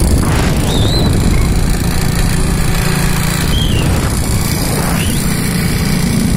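Hero Splendor motorcycle running at road speed, its engine under heavy wind rushing over the phone's microphone.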